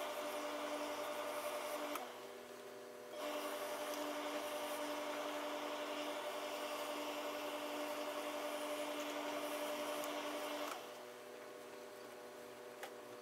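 Tailor's steam iron hissing as it releases steam while pressing fabric: a burst of about two seconds, then after a short break a longer burst of about seven seconds that cuts off suddenly.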